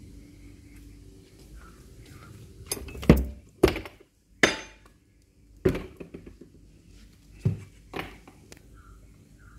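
Panelled wooden door being handled and opened: a run of about six sharp knocks and clinks, the loudest a few seconds in.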